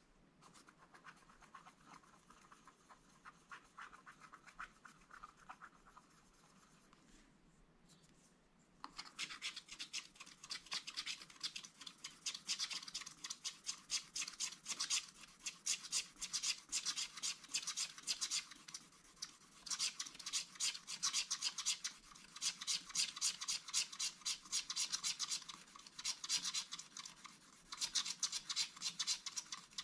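Wooden stylus scratching the black coating off a scratch-art card. Faint, fine scratching for the first several seconds, then loud, rapid back-and-forth scraping strokes from about nine seconds in, with a few brief pauses.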